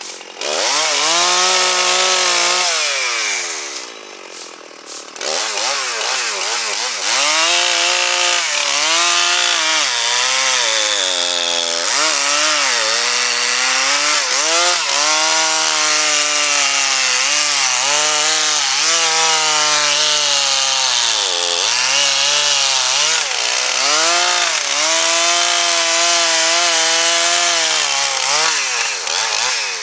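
Two-stroke chainsaw running at high revs and cutting pine, its pitch sagging and recovering again and again as the chain loads up in the wood. About three seconds in it drops back briefly, then revs up and cuts on.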